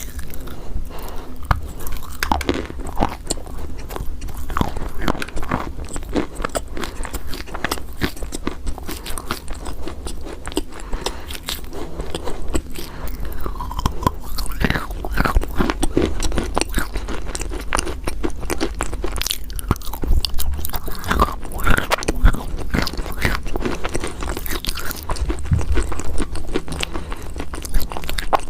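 Close-up crunching of chalk being bitten and chewed, with many small cracks and crumbling crunches coming irregularly.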